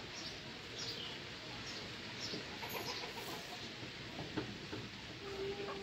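Birds calling in the background, short high chirps repeating every second or so with a few lower clucking calls, over a steady hiss of room noise. A steady low tone comes in near the end.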